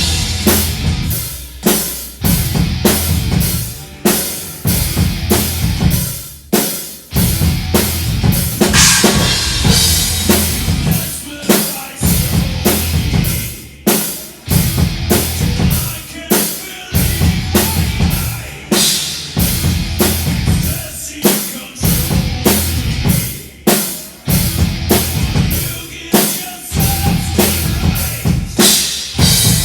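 Loud music led by a drum kit keeping a steady, driving beat, with bass drum and snare hits standing out over a heavy low end.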